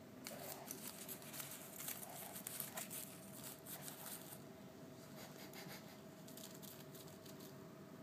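Faint scratchy rustling and small clicks of a budgie's beak pecking and tugging at a fluffy toy chick and its feet shifting on plastic artificial grass. The sound is busiest in the first half and thins out after about four seconds.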